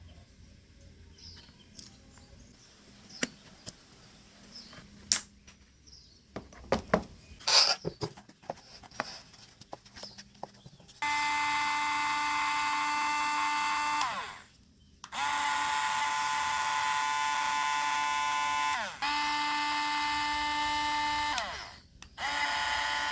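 Light clicks and taps of handling, then a small electric motor whines steadily. It is switched off three times, each time winding down with falling pitch, and started again.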